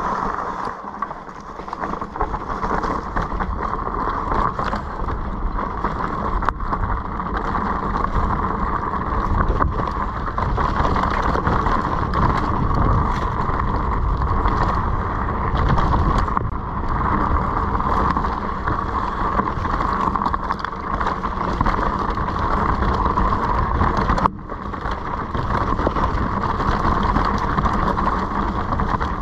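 Steady wind rush on the microphone over the rumble and rattle of a vehicle riding down a rough, rocky trail. The noise drops out for a moment a few seconds before the end.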